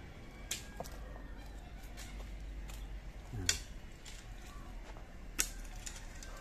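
Three sharp clicks or knocks, a few seconds apart, over a faint steady background.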